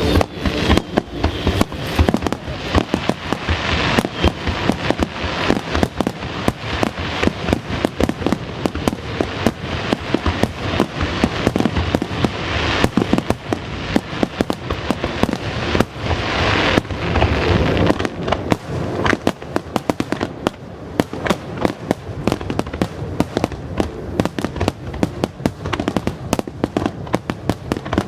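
Fireworks display: a rapid, continuous barrage of aerial shell bursts, a dense stream of bangs and crackles with no break. It swells into denser, louder stretches about 4, 13 and 17 seconds in.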